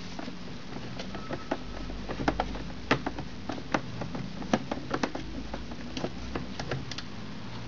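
A screwdriver working a screw in a DVD-RW drive's sheet-metal case: irregular small metallic clicks and ticks as the screw is turned and the case is handled.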